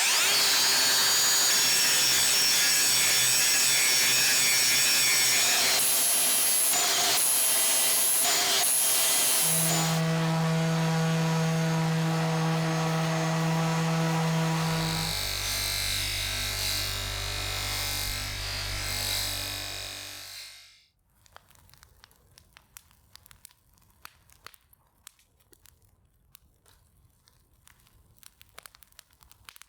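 Power tool running on wood, a steady whirring whose motor note shifts a few times before it cuts off about two-thirds of the way through. Faint light clicks and handling noises follow.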